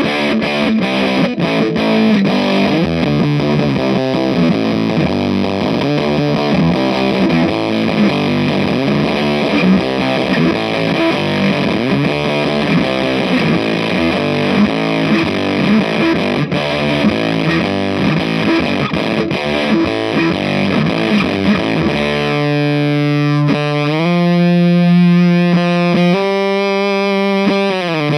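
Electric guitar played through an EarthQuaker Devices Terminal fuzz pedal, a thick fuzz tone in the style of old Japanese fuzz pedals. It plays fast fuzzed riffing, then near the end switches to a few long held notes that slide in pitch from one to the next.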